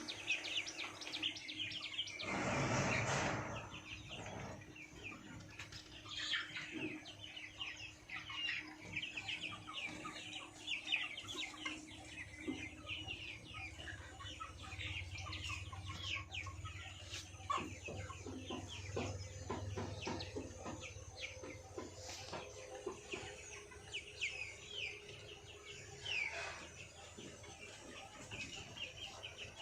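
Flock of 34-day-old Sonali chickens peeping and clucking continuously in many short high chirps, with one louder, longer call about two and a half seconds in.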